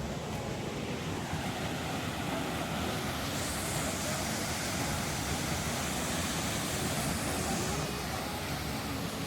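Steady rushing of a waterfall in full flow, an even roar of water with a brighter hiss for a few seconds in the middle.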